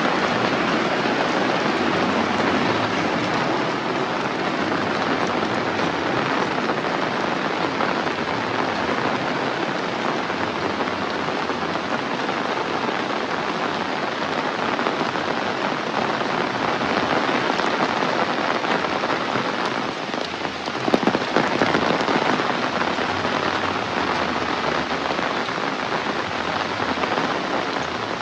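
Heavy rain falling steadily, a dense even hiss of drops, briefly easing and then swelling a little about two-thirds of the way through.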